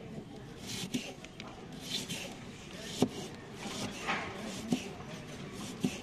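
Knife slicing onions on a wooden cutting board: a few sharp knocks of the blade on the board, irregularly spaced a second or two apart, with the crisp rasp of the blade cutting through onion between them.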